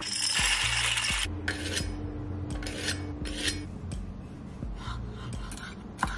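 Dry penne rushing and rattling out of a glass jar for about the first second, then a kitchen knife slicing a tomato on a wooden cutting board in a series of short, sharp cuts.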